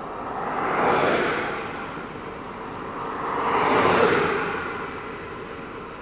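Two vehicles passing one after the other, each a rushing swell that builds and fades; the peaks are about three seconds apart.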